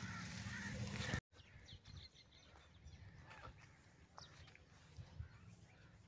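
Faint, scattered short bird chirps and calls, coming after a louder stretch of noise that cuts off abruptly about a second in.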